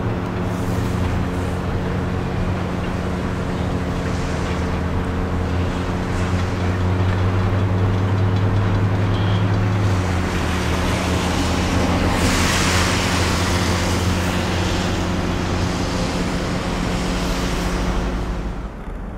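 A diesel engine running steadily with a low, even hum; its pitch steps down slightly about ten seconds in, and a rushing noise swells and fades around two-thirds of the way through.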